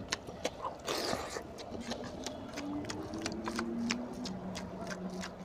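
Eating by hand: fingers squishing and mixing rice into oily mutton curry on a paper plate, with chewing and mouth noises. Many small wet clicks and smacks come in quick succession.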